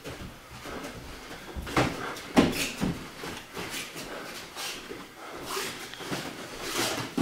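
Boxing gloves landing in light Muay Thai sparring: an irregular run of thuds and slaps, the loudest about two and a half seconds in.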